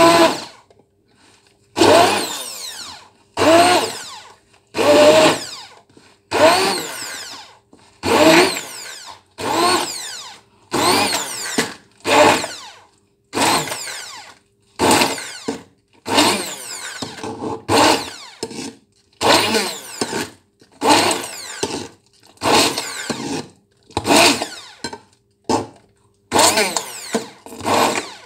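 Handheld stick blender pulsed on and off in short whirring bursts, about twenty times, roughly one every second and a half. Each burst starts sharply and then fades as the motor winds up and down, chopping chunks of raw meat in a ceramic bowl.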